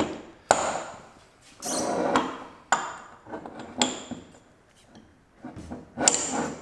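Steel CV axle flanges and a slotted spool shaft knocking together as the axles are slid onto the shaft: several sharp metal clanks, some with a short ring, and a longer scraping slide about two seconds in.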